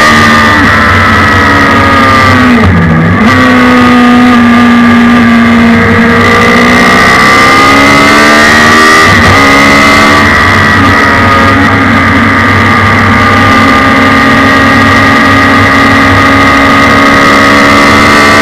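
Suzuki Hayabusa motorcycle inline-four engine powering a race car, heard loud from the cockpit at high revs under way. The revs dip sharply and recover about three seconds in and dip again briefly around nine seconds, otherwise holding a steady high pitch.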